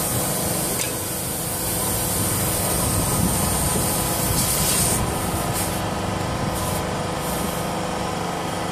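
Charcoal extruder line running: a steady machine hum with constant motor tones under a rubbing, scraping noise. The high hiss eases off about five seconds in.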